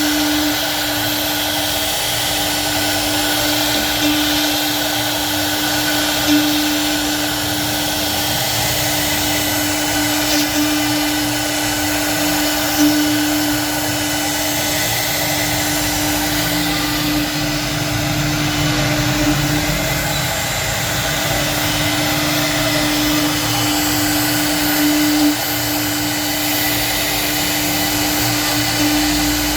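CNC router spindle running steadily with a constant whine while it carves wood, with brief slightly louder moments every few seconds.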